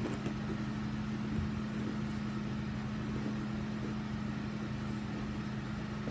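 A steady low mechanical hum, like a motor or appliance running, unchanging in pitch and level.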